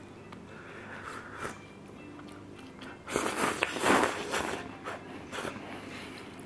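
A person eating cup noodles, with soft chewing and mouth sounds and one loud, noisy slurp from the lifted cup lasting about a second and a half, starting about three seconds in.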